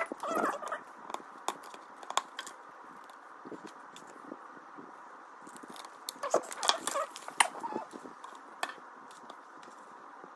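Plastic building bricks being handled and pressed together: scattered sharp clicks and taps, in a cluster near the start and another a little past the middle, with a few single clicks between.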